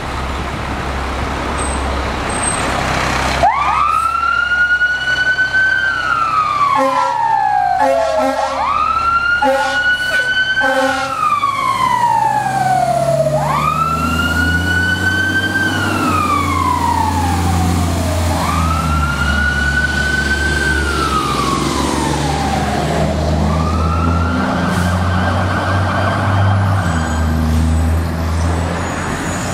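Fire engine siren wailing, starting a few seconds in: each cycle rises quickly, holds, then falls slowly, repeating about every five seconds, five times. A quick run of short air-horn blasts comes about eight seconds in, and the truck's engine rumbles low as it pulls past.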